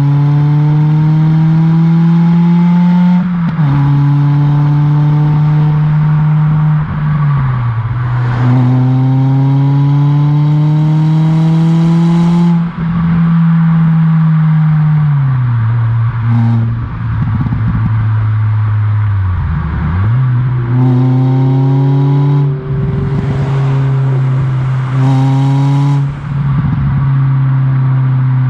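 Ford Fiesta ST150's 2.0-litre four-cylinder through a loud custom stainless steel exhaust, driven hard through the gears: the note climbs, drops at each gear change about three times in the first dozen seconds, then falls away on the overrun with crackles and burbles. Near the end it pulls up through the gears again.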